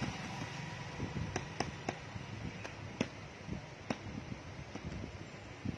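Scattered sharp clicks and light taps at irregular intervals over a low, steady background hum.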